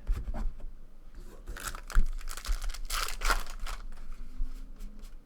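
A 2013 Topps Allen and Ginter trading-card pack wrapper being torn open and crinkled, with a few handling knocks, the loudest about two seconds in.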